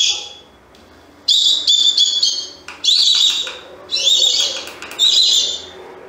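Recorded bird call played through the small speaker of a remote-controlled electronic MP3 bird caller: a high whistled call that rises sharply and then holds, repeated four times about a second apart after a short pause.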